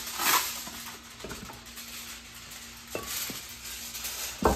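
Aluminium foil pulled from its box with a loud rustle just after the start, then crinkled and pressed over a glass baking dish. A few light knocks follow, and a sharper knock comes near the end.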